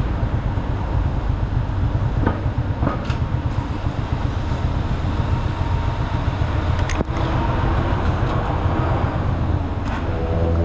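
Jialing 150 cc motorcycle engine running steadily while riding, with a continuous low rumble and a few brief clicks.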